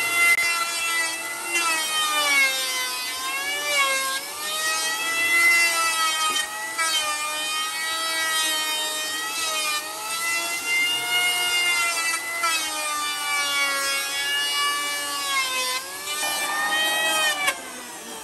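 Electric hand planer running and shaving a wooden board: a steady motor whine over the hiss of the cutter, its pitch sagging again and again as the blades bite under load and recovering between. Near the end the level drops sharply.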